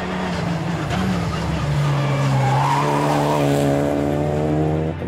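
Renault Clio rally car driven hard through a tarmac hairpin, its engine note held strong, with tyre squeal. The sound cuts off suddenly near the end.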